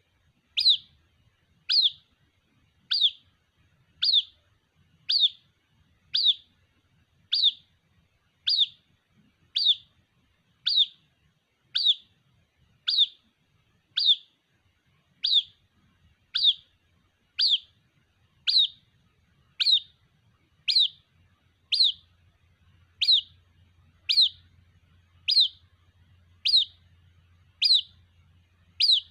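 White-breasted waterhen (ruak-ruak) chick calling for its parent: a short, high peep repeated evenly about once a second, each note falling sharply in pitch.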